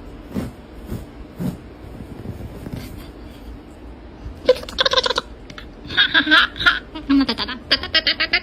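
A person laughing in several bursts in the second half, the last ones a quick run of short laughs, after a few soft knocks.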